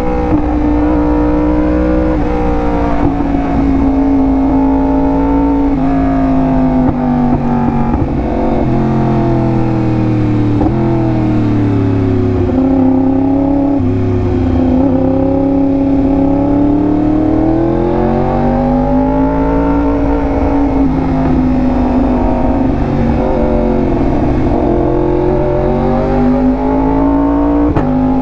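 Yamaha R1M's crossplane inline-four engine running loud through an SC Project exhaust while riding, its pitch rising and falling several times as the revs change.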